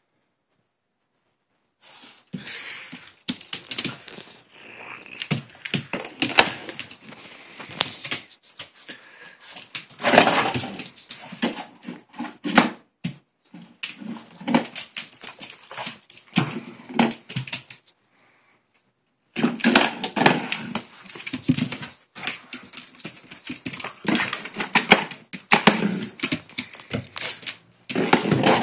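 A dog scrambling and pouncing after a laser dot on a vinyl floor: a dense run of nail clicks and scrabbling, collar tags jingling, and short dog vocal sounds mixed in. It starts about two seconds in and breaks off briefly past the middle.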